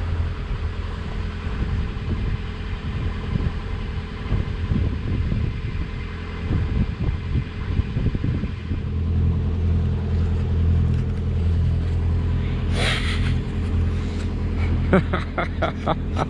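Wind buffeting the microphone with a low, gusty rumble over a steady low engine hum. The hum becomes stronger and steadier about nine seconds in. A short rustle comes about thirteen seconds in, and a few clicks near the end.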